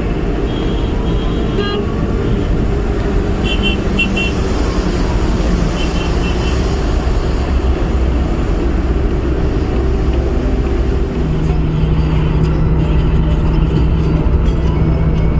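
Steady road rumble and tyre noise of a car driving on a wet highway in the rain, heard from inside the car. Short horn toots sound in quick groups about three and a half seconds in and again about six seconds in, and a low steady hum comes in about eleven seconds in.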